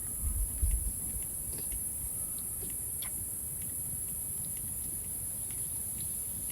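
Steady high-pitched chirring of insects, with scattered faint ticks. There are low rumbling bumps about half a second in.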